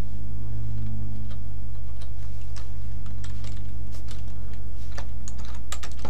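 Keystrokes on a computer keyboard: scattered single clicks, coming quicker near the end, over a steady low electrical hum.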